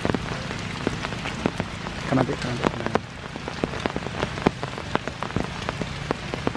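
Steady rainfall, with many large drops striking close by as irregular sharp ticks.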